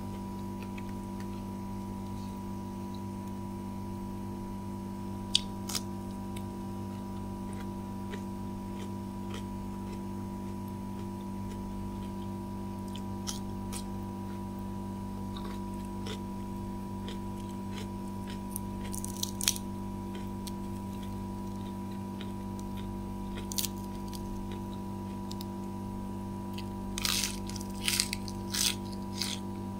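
Close eating sounds: scattered crisp crunches and clicks of food being bitten and chewed, coming more often near the end, over a steady background hum.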